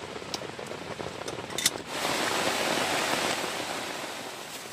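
Heavy rain falling steadily, with scattered light ticks, one sharp click about a second and a half in, and a louder rush of noise for a second or so soon after.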